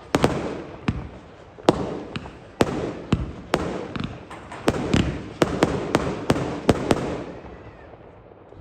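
Aerial fireworks going off: a string of sharp bangs and pops, one to three a second, each with a rumbling echo, thinning out near the end.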